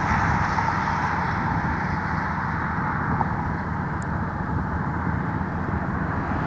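Truck driving along a road: steady engine and tyre noise.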